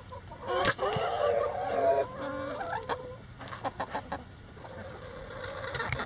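A flock of chickens clucking. About half a second in comes one long, drawn-out call lasting over a second, followed by shorter clucks and a few sharp taps.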